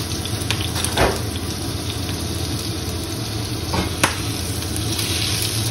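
Knob of butter fizzing and bubbling in hot corn oil in a carbon steel frying pan: the water in the butter boiling off. Two short scrapes, about a second in and about four seconds in, as the pan is shifted on the gas hob.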